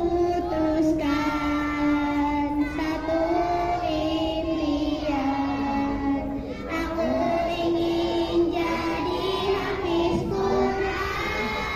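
Children singing a song, with long held notes.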